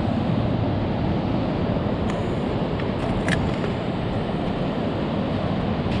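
Steady low rumble of wind and distant surf, with three faint clicks near the middle.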